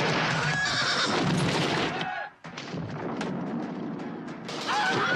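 Horses neighing over the loud, dense noise of a mounted battle in a film soundtrack. About two seconds in the sound drops abruptly to a quieter stretch with scattered sharp cracks, and the loud battle noise returns near the end.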